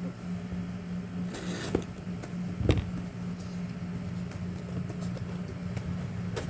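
Knife blade slitting packing tape on a cardboard shipping box: a short scraping stroke about a second and a half in and a knock about a second later, over a steady low hum.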